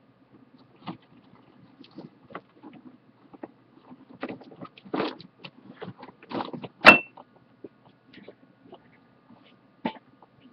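Rummaging through items on a shelf: scattered knocks, rustles and clatter, with one sharp metallic clink about seven seconds in that rings briefly.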